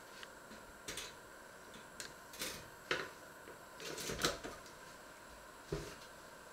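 A scattering of short clicks and knocks from handling things at a kitchen counter. Among them is the lever of a pop-up toaster being pushed down to lower two slices of bread.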